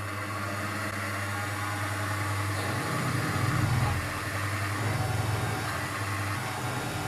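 Small benchtop manual milling machine running, its spindle motor giving a steady hum with a hiss over it; the sound swells and wavers unevenly through the middle.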